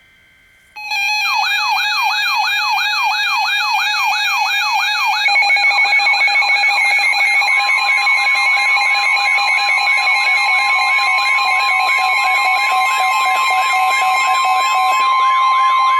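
Weather radio emergency alert: a loud, fast-warbling siren over steady tones starts about a second in. About seven seconds in, the steady NOAA Weather Radio 1050 Hz warning alarm tone joins it, signalling that a warning broadcast follows.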